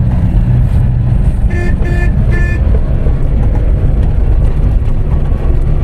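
Steady low engine and road rumble inside a moving car. Three short horn toots sound about one and a half to two and a half seconds in.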